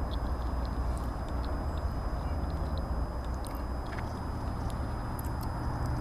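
Steady outdoor background noise: a low rumble under an even hiss, with a few faint, short high ticks or chirps. A low hum joins about two-thirds of the way in.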